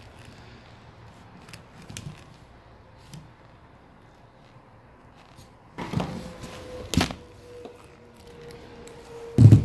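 Electrical wire being stripped by hand with a knife and wire strippers: quiet scraping and small clicks, then two louder clacks about six and seven seconds in, and a heavy thump just before the end.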